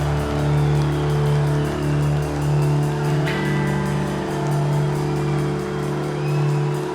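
Live rock band playing a heavy, droning passage: sustained low notes pulse in a slow rhythm, and the chord shifts about three seconds in.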